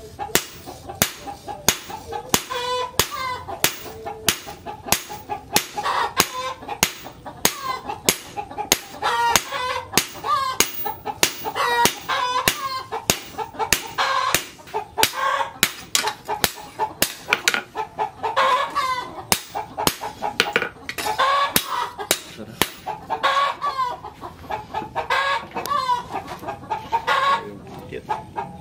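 Hand hammer striking a red-hot steel machete blade, cut from a tractor disc plough, on a steel-post anvil: sharp metallic blows at about two a second as the blade is forged to shape. Chickens cluck over the hammering.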